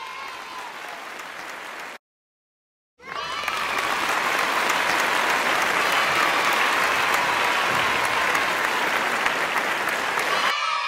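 Crowd applause and cheering, a dense steady clatter, cut off by about a second of dead silence two seconds in and then back louder.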